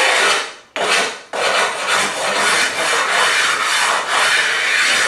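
A rubbing stone scraping back and forth along the sawn edge of a porcelain tile, smoothing and cleaning up the cut edge. It goes in steady strokes, with two brief pauses in the first second and a half.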